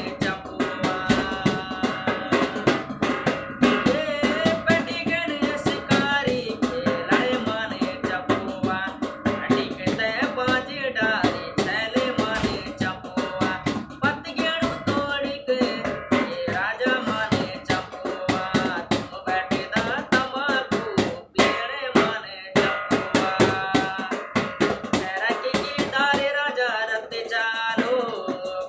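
A man singing a song over accompanying music with a steady drum beat.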